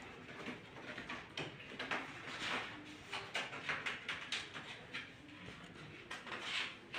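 Faint, irregular rustling and light knocks.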